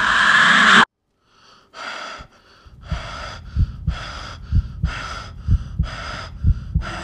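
A loud rushing hiss cuts off abruptly about a second in. After a moment's silence comes heavy, fast breathing, a longer and a shorter breath about once a second, with low thumps in time beneath it.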